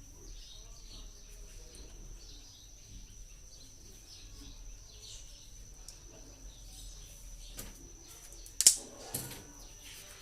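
Quiet hand-work noises from wrapping thread-seal tape around a plastic water-filter fitting, with one sharp click about eight and a half seconds in. A faint steady high whine runs underneath.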